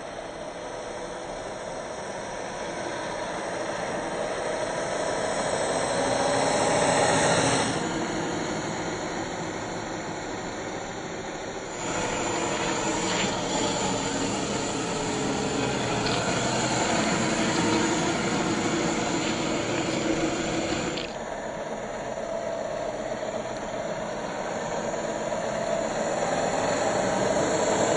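Electric drivetrain of a 1/10-scale RC crawler on an SCX10 III chassis running, a steady motor-and-gear hum under a hiss. The sound changes abruptly three times, at about 8, 12 and 21 seconds in.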